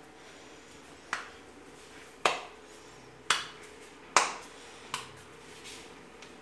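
Hands slapping and pressing pieces of dough into small balls over a bowl of flour: five short, sharp slaps, about one a second.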